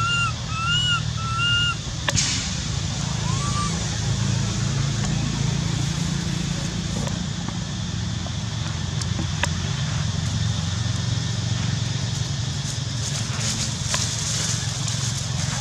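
Baby macaque giving three short, high, arching cries in quick succession, then one more a second and a half later, over a steady low rumble.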